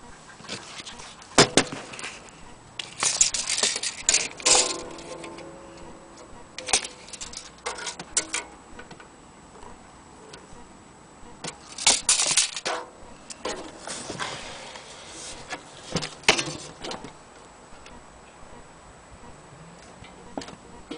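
An old banjo being handled: scattered clicks, knocks and rattles, with a brief pitched ring about four and a half seconds in.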